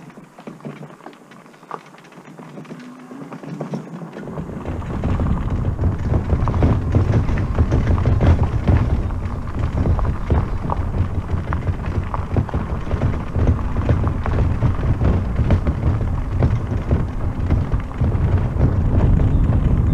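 Wind buffeting the microphone of a moving e-bike, a loud low rumble that starts about four seconds in and holds, over the crunch and rattle of tyres on a gravel road.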